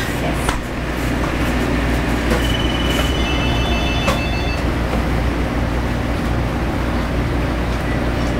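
Steady mechanical hum and rumble of machinery, with a few clicks and knocks and a short run of high electronic tones for about two seconds near the middle.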